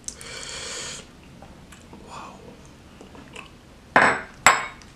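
Thick gulai curry sauce pouring from a bowl onto a plate of rice, a soft wet splashing for about the first second. Near the end come two short, sharp smacks.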